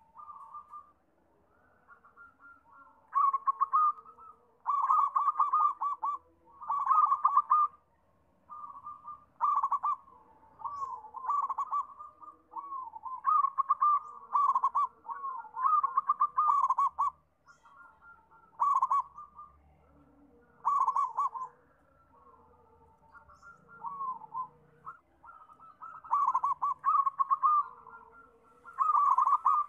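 Zebra dove (perkutut) singing: a run of rapid, trilled cooing phrases about a second long, repeated with short gaps. The loudest phrases come a few seconds in and again near the end.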